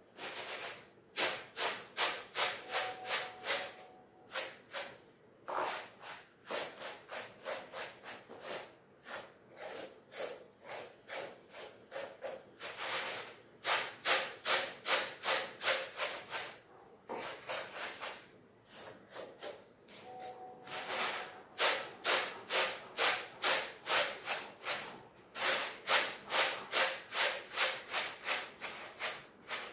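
Split moong dal being tossed and shaken in a muram (winnowing tray): a rhythmic rustling hiss of grain sliding and jumping against the tray, about three strokes a second, in runs with short pauses. This is the winnowing that separates the loose husks from the split dal.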